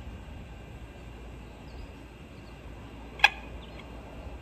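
An RF meter's audio output picking up an airport radar: a faint steady hiss broken by one short, sharp pulse about three seconds in. The pulses come every four seconds, one each time the radar's rotating beam sweeps past.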